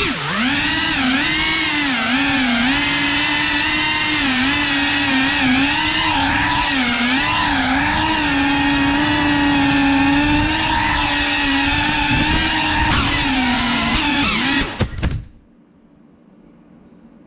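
FPV quadcopter's motors and propellers whining, the pitch rising and falling with the throttle. About 15 seconds in there are a couple of knocks and the motors cut off suddenly as the drone comes to rest on the floor.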